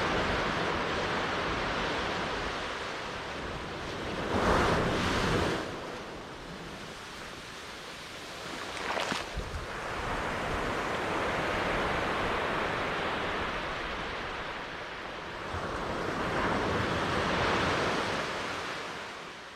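Sea waves breaking and washing in slow swells that rise and fall every few seconds, with a louder rush about four seconds in and a short splash near the middle.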